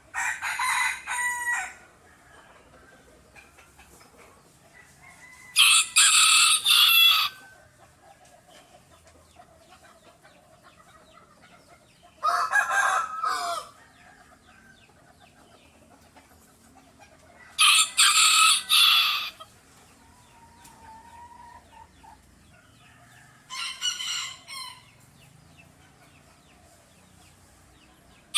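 Rooster crowing five times. Each crow lasts about a second and a half, with roughly five to six seconds between crows; the last crow is noticeably quieter.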